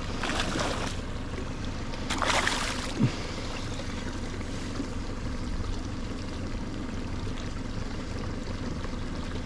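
Small boat sitting on the water with a steady low rumble and lapping, broken by two short hissing rushes in the first three seconds and a small knock just after.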